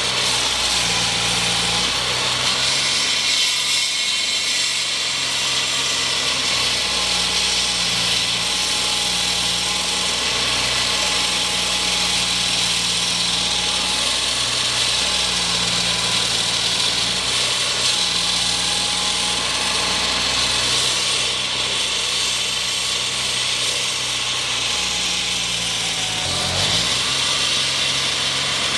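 Construction machinery running steadily, an engine hum whose pitch steps up and down under a constant high hiss like a power tool cutting or grinding, with a short drop in the engine note near the end.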